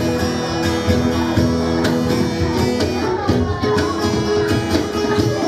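Live band music: two guitars playing sustained chords, with a cajon behind them, as the opening of a school choir song.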